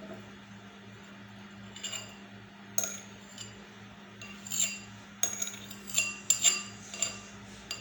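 A metal utensil clinks against a glass container about ten times at irregular intervals, the strikes coming closer together in the second half, as lemon seeds are picked out of the squeezed juice. A steady low hum sits underneath.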